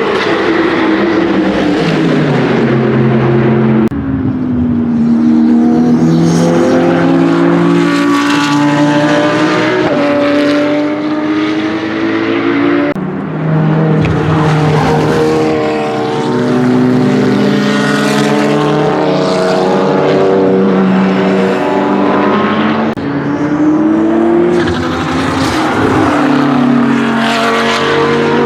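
BMW M6 GT3 race car's twin-turbo V8 at racing speed. It rises in pitch as it accelerates through the gears and falls as it brakes and downshifts, over several spliced trackside passes with abrupt changes in sound at each splice.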